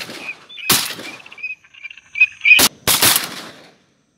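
Shotgun shots at flying ducks: one about two-thirds of a second in, then a quick pair around two and a half to three seconds in, each with a short echoing tail.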